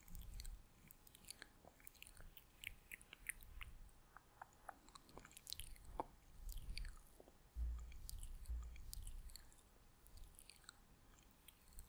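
ASMR mouth sounds made close to a microphone: many small wet lip and tongue clicks, scattered irregularly, with a few soft low thumps.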